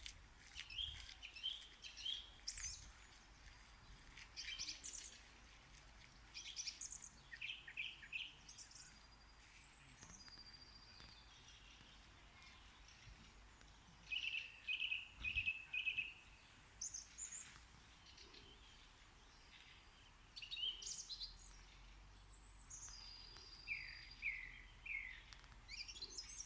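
Bird song: short bursts of high chirps and whistles, some phrases a quick run of three or four repeated notes, separated by pauses of a few seconds.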